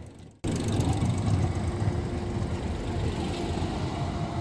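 Alstom TFS tram passing close by: a steady low rumble of wheels and running gear with a faint steady motor hum. It starts abruptly about half a second in.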